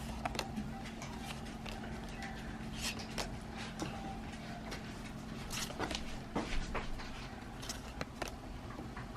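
Pokémon trading cards being handled and flipped through, making an irregular series of light clicks and rustles.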